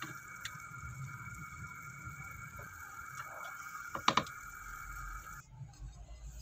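A ladle moving through a pot of hot soup, with faint sloshing of liquid, and a sharp double knock of the ladle against the pot about four seconds in.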